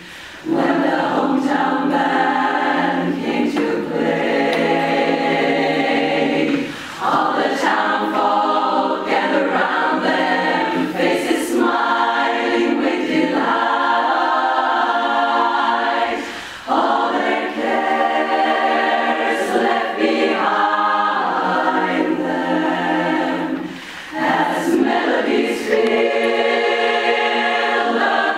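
Women's barbershop chorus singing a cappella in close harmony, sustained phrases broken by a few short pauses.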